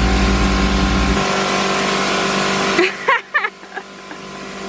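Side-by-side utility vehicle engine running with a steady low hum that drops away about a second in. A few short, high yips from a small dog come a little past halfway.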